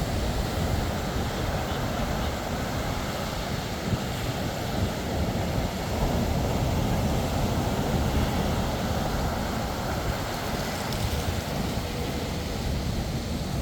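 Sea surf washing steadily onto a sandy beach, with a low rumble of wind buffeting the microphone.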